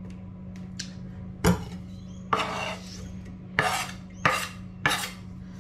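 Kitchen knife scraping chopped vegetables off a wooden chopping board into an oven dish: about five short scrapes and knocks, the second one longer, about two seconds in.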